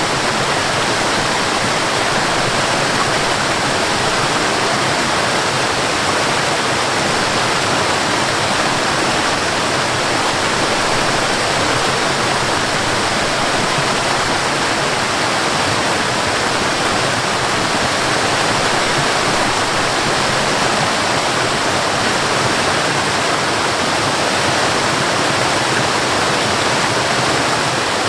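Waterfall rushing steadily: an even, unbroken roar of falling water.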